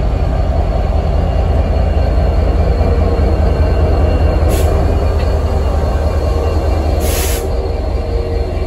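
Norfolk Southern diesel locomotives passing close by, a loud steady deep engine rumble with wheels rolling on the rails. Two short hissing bursts cut in, a brief one about halfway through and a longer one near the end.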